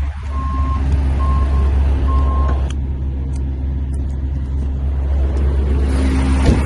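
Heavy truck engine idling with a steady low drone. A single-pitch beeping alarm sounds about once a second and stops about two and a half seconds in, followed by a few faint clicks.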